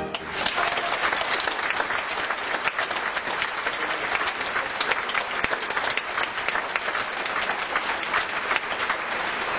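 Theatre audience applauding, dense steady clapping that swells in as the orchestra stops at the start.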